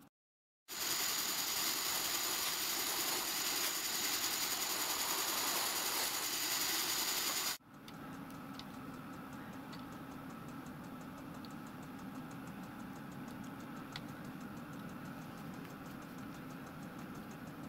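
Pillar drill running as its bit cuts a tapping-size hole into a solid cast iron cylinder block, a steady even noise. About seven and a half seconds in, it gives way abruptly to a quieter steady machine hum with a few faint ticks while the hole is threaded 3/16 x 40 tpi.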